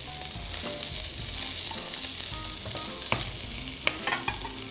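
Palombo (smooth-hound shark) steaks and a garlic clove sizzling steadily in hot olive oil in a frying pan, with a couple of sharp clicks near the end.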